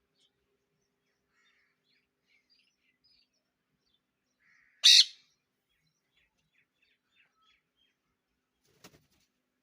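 A parrot gives one loud, harsh screech about five seconds in, amid faint high chirps; a faint click comes near the end.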